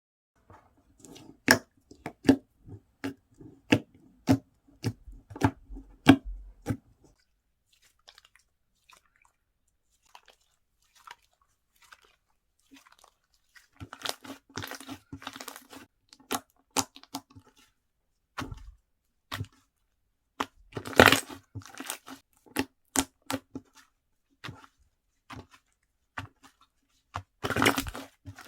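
Thick, dense slime with sponge pieces mixed in being pressed, folded and stretched by hand, giving sharp pops and clicks of trapped air bubbles. The popping goes quiet for several seconds partway through, then picks up again with a few louder bursts of crackling pops.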